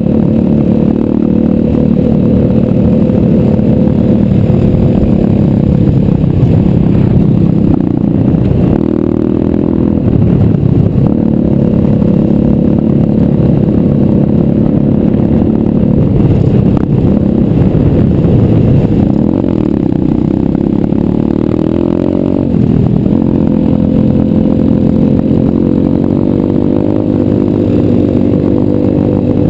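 A 125cc pit bike's single-cylinder four-stroke engine running loud and close, its pitch rising and falling several times as the throttle opens and closes.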